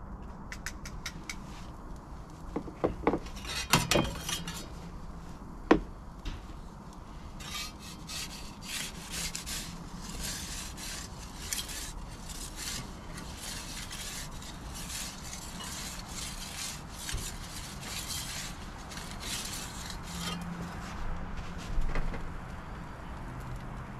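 Utensils clicking and knocking on a wooden board, with one sharp knock about six seconds in. Then a long run of quick, rough scraping strokes as a wooden pizza peel is worked back and forth in the mouth of an Ooni pizza oven to slide the pizza off onto the baking stone.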